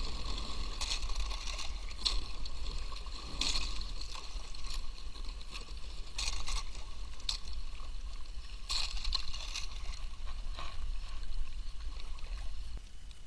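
Kayak paddling: the paddle blades dip and splash at irregular strokes, with water moving along the hull and a steady low rumble.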